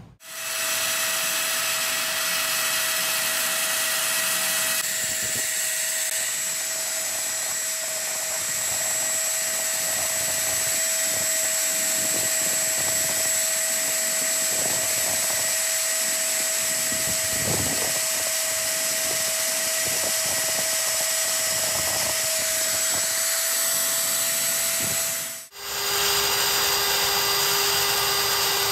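Drill press motor running with a steady whine while a small bit drills into an aluminium truck piston. About 25 seconds in the sound drops out for a moment and comes back at a lower pitch.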